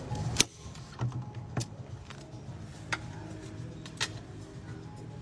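Knife and apple knocking against a ceramic plate: a few sharp taps a second or so apart, the strongest about half a second in, over a low steady hum.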